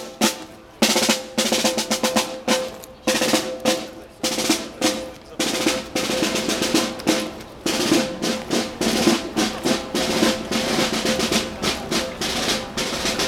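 Military snare-drum marching cadence with rolls, played over a held note, keeping a steady march beat for the guard.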